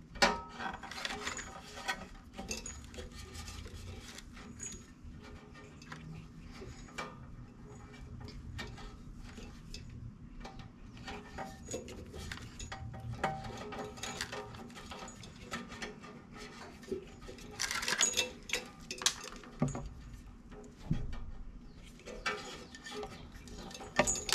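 Thin hour-meter sensor wire being wrapped by hand around a small engine's spark plug wire: scattered small clicks, ticks and light rustling as the wire and fingers tap against the engine and handle, with a louder cluster of clicks about 18 seconds in.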